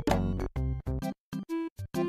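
Background music with short, choppy notes broken by brief gaps.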